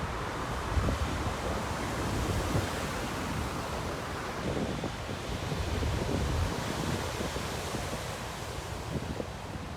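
Sea surf washing steadily onto the beach, swell stirred up by a distant typhoon, with gusty wind buffeting the microphone in low rumbles, strongest about a second in and again around six seconds.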